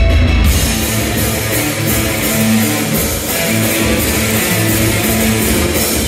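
Live rock band at full volume: loud electric guitar over drums, heard from the crowd. About half a second in, a heavy bass drone gives way to the full band with bright cymbals and guitar.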